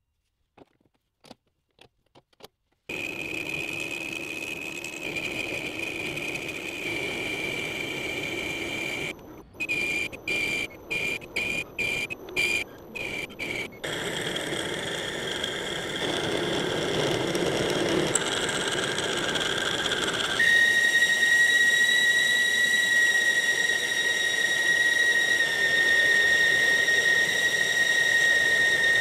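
Metal lathe boring out the rough bore of a steel belt pulley: a few light handling clicks, then the turning cut with a steady high-pitched whine from the tool. The whine is chopped into short pieces in quick succession partway through, and over the last several seconds a louder, steady squeal holds.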